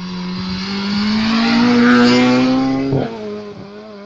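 Rally car engine accelerating hard as the car approaches, its note rising steadily in pitch and getting louder for about three seconds. About three seconds in the pitch drops abruptly with a short sharp crack, and the engine carries on lower and quieter as the car goes by.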